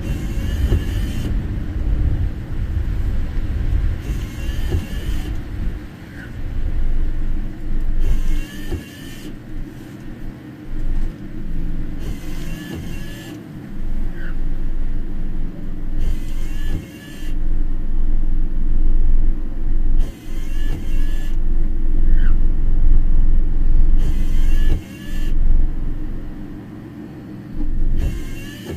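Inside a car driving in heavy rain: a steady engine and tyre rumble, with the windscreen wipers sweeping about once every four seconds, each pass a squeaking swish lasting about a second.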